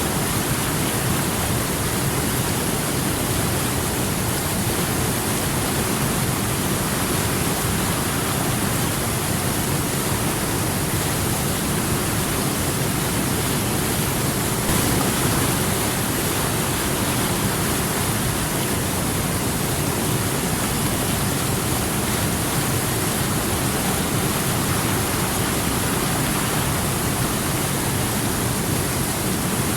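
A river rushing: a steady, even rush of flowing water with no breaks.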